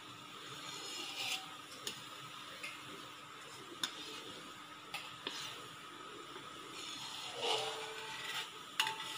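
Palm sugar syrup boiling hard in a metal wok, a steady hiss of bubbling as it boils down to thicken. A metal slotted spoon scrapes and taps against the wok several times.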